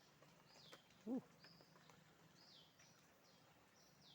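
Faint bird calls, a short high note dropping in pitch, repeated about once a second, against quiet outdoor background. About a second in comes a single brief low-pitched sound that rises and falls.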